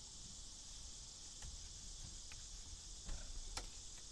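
A gloved hand and rag scrubbing a 1976 Chevy Blazer's steering wheel, making a few faint, scattered rubs and squeaks, the loudest near the end. A steady high-pitched hiss runs underneath.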